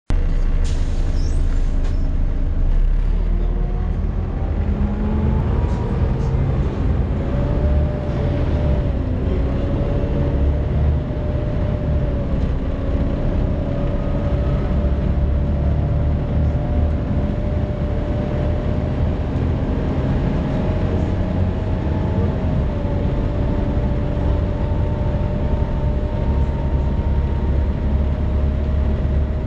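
The engine cooling fan of a Volvo B7TL double-decker bus whining like a hoover, rising in pitch over the first several seconds and then holding steady, above the diesel engine and road rumble heard inside the bus.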